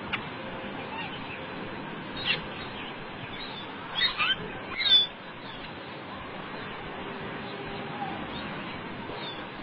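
A bird calling in short, sharp squawks: one about two seconds in, a quick cluster about four seconds in and the loudest about five seconds in. A steady hiss runs underneath.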